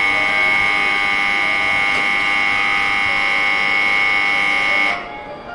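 Electronic warning buzzer on a Tokaido Shinkansen platform, one loud unchanging buzz that cuts off abruptly about five seconds in, sounding as the platform safety gates close for departure.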